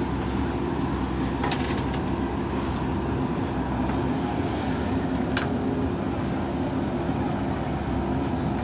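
Diesel engine of a JCB 3DX backhoe loader running steadily, with a few brief knocks.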